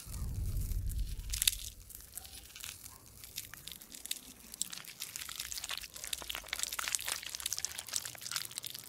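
Crunchy crackling sound effect: a dense run of small, sharp clicks and crackles, with a low rumble in the first second or so.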